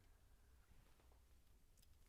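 Near silence: room tone with a low hum and a few faint clicks of LEGO pieces being handled and fitted.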